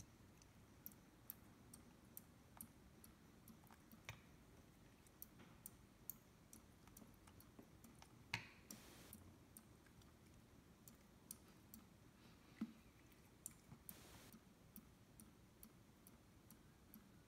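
Faint, irregular ticks of water drops falling from a slowly dripping kitchen faucet, with a few louder clicks and two short soft rushes of noise partway through.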